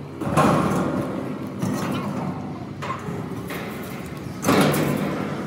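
Large welded sheet-steel fuel tank being tipped over on a concrete floor, its steel edges scraping and bumping on the concrete twice: about half a second in and again near the end, each fading over about a second.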